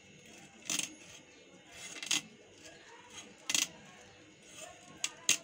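Knife scraping scales off a snakehead fish: five short, sharp scraping strokes, about one every second and a half, the last two close together near the end.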